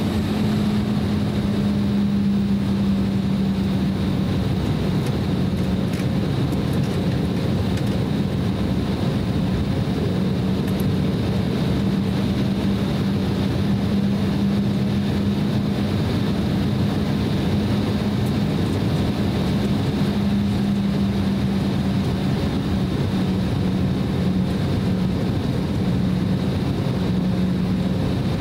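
Cabin noise inside an Embraer E190 jet airliner taxiing, its GE CF34 turbofan engines running steadily at taxi power. Through it runs a steady low hum, with a faint high whine above.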